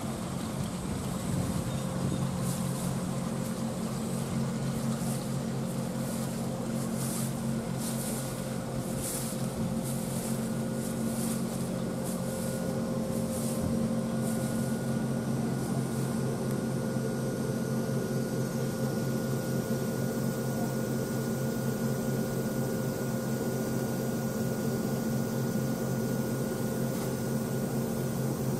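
Steady electric hum of a standing EF63 electric locomotive's on-board machinery, a low multi-toned drone with a fainter high whine in it.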